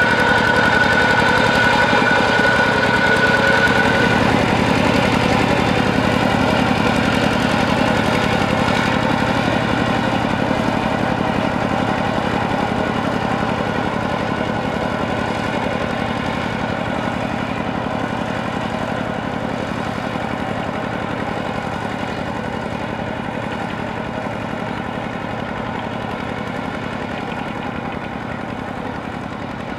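Kubota ZT120 walk-behind tractor's single-cylinder diesel engine running steadily under load while plowing a flooded paddy, slowly getting quieter as the tractor moves away.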